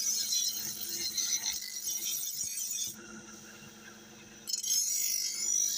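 Steel knife blade ground against a spinning grinding wheel while being sharpened: a high, hissing grind that stops about three seconds in as the blade is lifted off, then starts again about a second and a half later.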